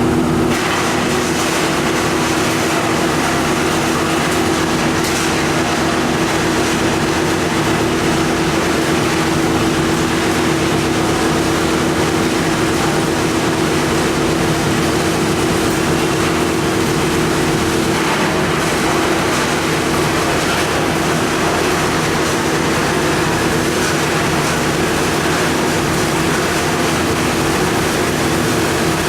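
AST-600 copper wire recycling machine running steadily: a continuous loud mechanical noise with a strong steady hum that does not change.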